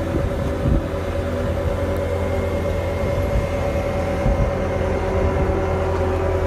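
Compact track loader's diesel engine running at a steady speed, a constant low rumble with a steady hum above it.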